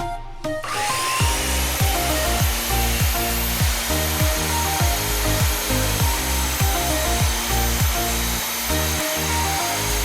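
Background music with a steady beat over a power saw running steadily, its hiss and high whine starting about a second in.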